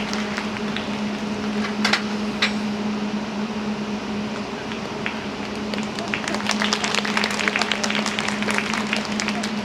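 Scattered hand clapping from a small audience, thickening about six seconds in, over a steady low hum.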